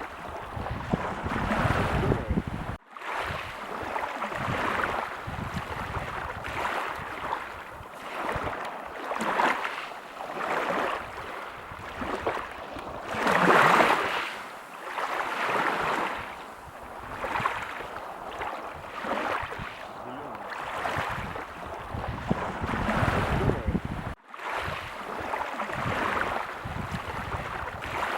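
Sea waves breaking and washing up a beach, rising and falling in swells every couple of seconds; the loudest wave breaks about halfway through. Two very brief dropouts break the sound.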